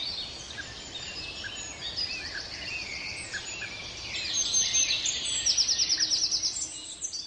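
Forest ambience of many birds chirping and whistling. A rapid, high, pulsing trill runs for about a second, starting about five and a half seconds in.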